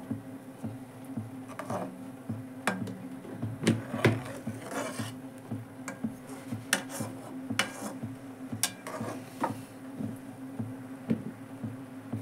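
A metal slotted spoon clinking and scraping against a metal cooking pan in scattered, irregular knocks as eggs are turned in simmering liquid. A low steady hum runs underneath.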